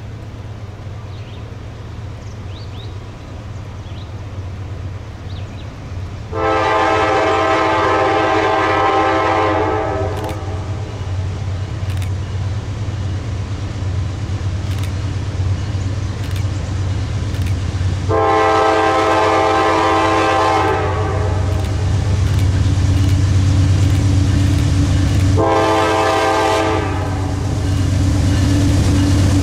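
Norfolk Southern diesel freight locomotives approaching, their engines rumbling louder as they near. The lead unit sounds its multi-chime air horn in a long, long, short pattern: the opening of the grade-crossing signal.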